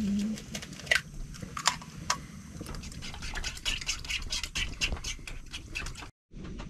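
Sausage frying in a pan, the fat crackling with many small sharp pops that grow thicker toward the middle. The sound breaks off briefly near the end.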